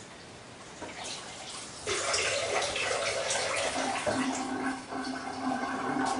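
Water pouring into a cooking pot, starting about two seconds in and running steadily with a hollow filling-vessel tone.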